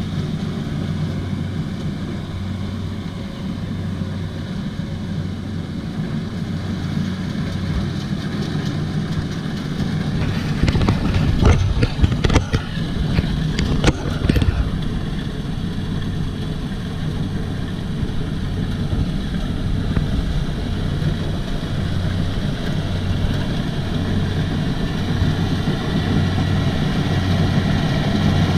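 Kubota DC-70 combine harvester's diesel engine running steadily with a pulsing low hum. About ten seconds in, a run of sharp clattering knocks lasts a few seconds.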